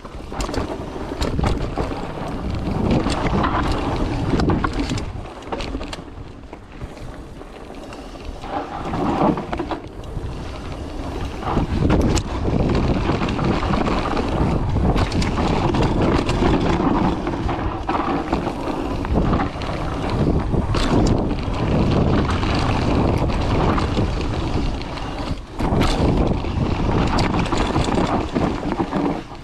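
Mountain bike descending a dirt singletrack: wind rushing over the GoPro microphone, tyres rolling on dirt, and the bike rattling and knocking over bumps. The noise dips for a few seconds early on, then grows louder and steadier from about twelve seconds in.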